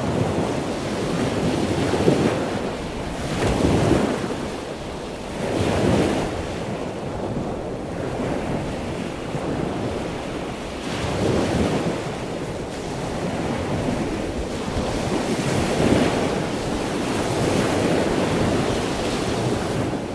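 Rushing water noise, like surf, swelling and easing every few seconds.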